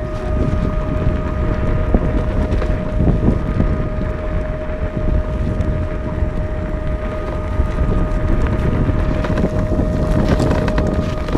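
Wind buffeting the camera microphone on a moving electric off-road skateboard, a dense low rumble, over a steady high whine.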